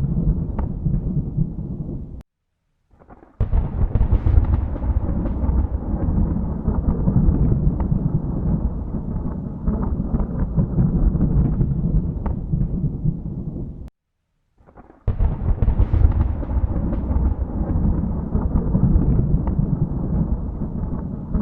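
Thunder rumbling deeply and continuously. It cuts off to silence twice for about a second, and each time a new thunderclap starts with a sharp crack before rolling on.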